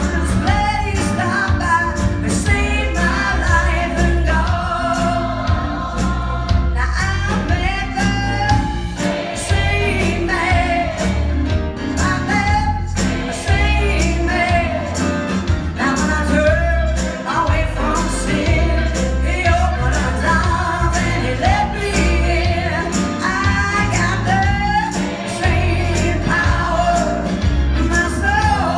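A lead singer and choir singing a gospel-tinged song over a band, with a steady pulsing bass line and a regular drum beat.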